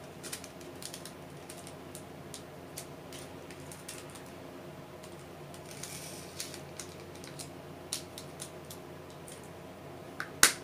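Scattered light clicks and taps of hard plastic as clear multi-compartment diamond-painting drill storage containers are handled, with a brief rustle in the middle and one loud sharp snap near the end.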